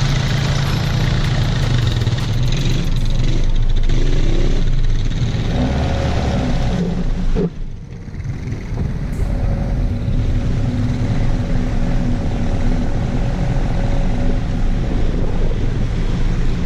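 Lifted Honda CR-V's engine running under load on an off-road trail, revs rising twice, then a brief drop about seven and a half seconds in before it settles back to steady running.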